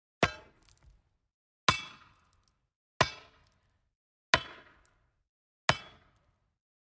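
Sharp clanging strikes, five of them evenly spaced about a second and a half apart, each ringing briefly before dying away.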